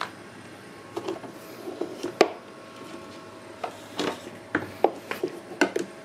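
Scattered knocks and rubbing clicks from handling close by, the sharpest about two seconds in, over the faint steady hum of a portable camping fridge's compressor running.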